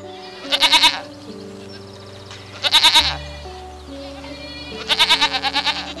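Goats bleating three times, each a quavering bleat lasting under a second, over soft piano music.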